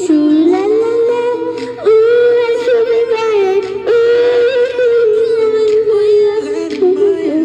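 A young girl singing into a handheld microphone, holding long notes with the melody moving up and down.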